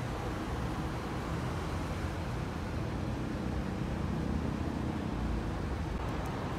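Steady low drone of vehicle engines and traffic.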